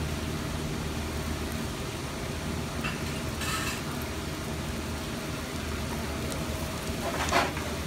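Steady low hum and hiss from lit gas stove burners under a rectangular tamagoyaki pan, with two brief scrapes, about three and a half and seven seconds in.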